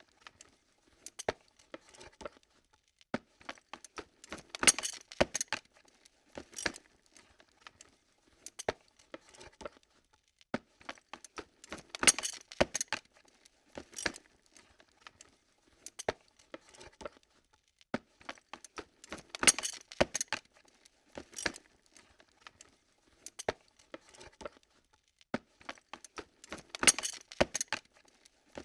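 Camera lens mechanism moving: short bursts of small clicks and light rattles every second or two, with a louder cluster about every seven and a half seconds.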